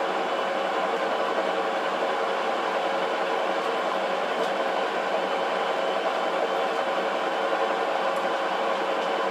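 Metal lathe running steadily in low back gear, taking a single-point thread-cutting pass on a 24 mm steel feed screw with a carbide insert: an even mechanical hum with several held whining tones.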